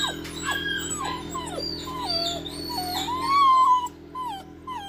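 A puppy whining in a run of short, high whines that drop in pitch, two or three a second, with a longer, louder whine a little past halfway. A steady low hum runs underneath.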